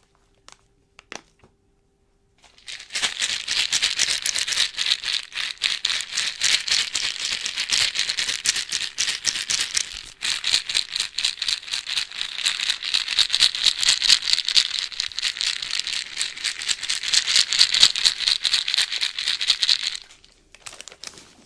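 Small hard candies rattling inside a multipack of small plastic candy tubes, shaken continuously close to the microphone. It is a fast, dense, crisp rattle that starts about three seconds in, dips briefly about halfway, and stops a second or so before the end.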